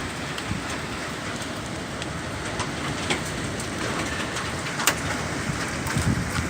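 Heavy rain falling steadily, with scattered sharp ticks of hailstones striking; one louder hit about five seconds in.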